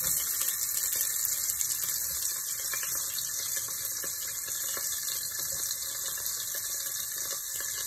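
Chopped onion and tomato sizzling in hot vegetable oil in a pot: a steady hiss that eases slightly as it goes.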